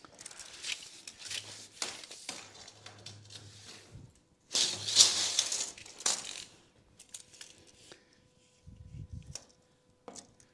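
Workshop handling noises as a plywood sheet is measured and marked: scattered clicks and knocks, with a louder scraping rush lasting about two seconds about halfway through.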